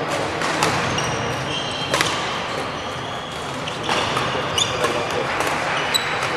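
Badminton rally: sharp racket hits on the shuttlecock every second or two, with sports shoes squeaking on the wooden court floor between them.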